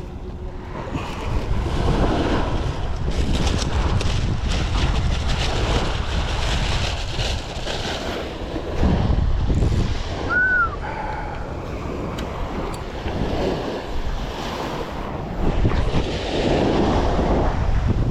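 Wind buffeting the microphone over the wash of sea water around a small boat, rising and falling in gusts.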